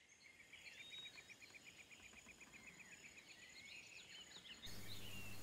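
Faint birdsong: a rapid run of repeated chirps, about seven a second, with short gliding whistled calls above it. About four and a half seconds in, a low steady hum of room tone comes in.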